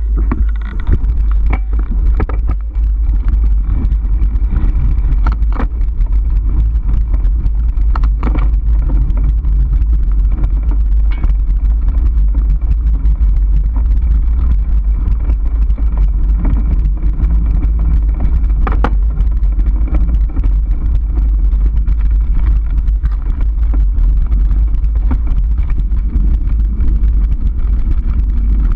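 Heavy wind buffeting and vibration rumble on a handlebar-mounted camera of a mountain bike riding a bumpy dirt single track, with occasional sharp knocks and rattles from the bike going over roots and bumps.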